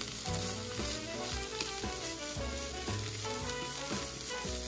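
Minced turkey and diced vegetables sizzling in a frying pan while being stirred with chopsticks, with soft background music underneath.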